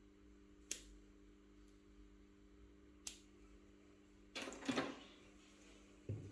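Small repair tools clicking and scraping on a phone during a battery replacement: two sharp single clicks, then a brief burst of scraping and clicking about four and a half seconds in, over a steady low hum.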